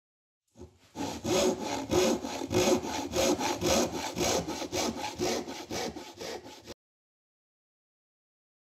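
Hand saw cutting through wood in quick, even back-and-forth strokes, about four a second, then cutting off suddenly.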